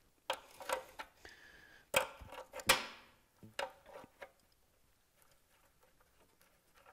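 Crescent wrench clinking and knocking against a threaded metal oil-line fitting on a motorcycle as the fitting is loosened. A run of sharp metallic clicks fills the first four seconds, loudest just under three seconds in, then only faint handling.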